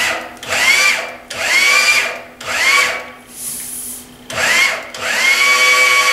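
Electric motor driving a bench sheet-metal machine, switched on in about four short spurts, each with a whine rising as it spins up, then left running steadily near the end while sheet metal is fed through.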